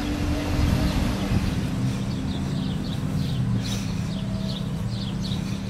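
Outdoor street ambience: a steady low hum with wind rumble on the microphone, and from about halfway in, birds chirping in short, repeated downward notes.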